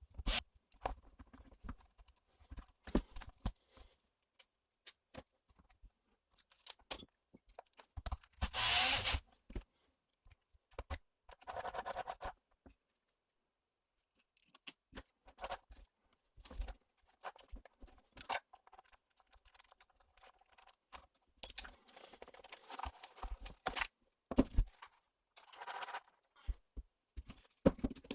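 Small metal parts and hand tools clicking, clinking and scraping in irregular bursts while an RC truck's rear differential and bulkhead are worked on by hand, with a brief near-silent pause midway.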